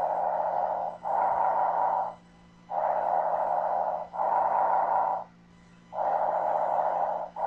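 Normal bronchovesicular breath sounds as heard on auscultation: a breathy rushing on each breath in and each breath out, the two phases about equally long and nearly joined, with a pause between breaths. Three breaths.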